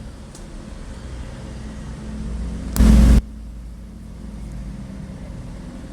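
Steady low background rumble, with one short, very loud burst of noise lasting under half a second about three seconds in.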